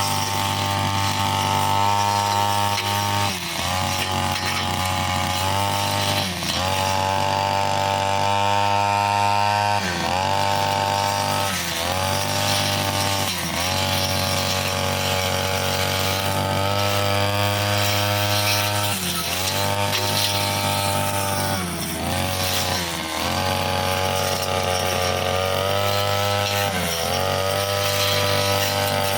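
Petrol brushcutter running at high speed with a cutting blade fitted. Its pitch dips briefly every few seconds and climbs back as the blade bites into the growth and frees itself.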